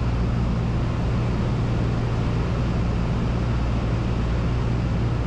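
Single-engine Cessna's piston engine and propeller running with a steady, even drone, heard inside the cabin.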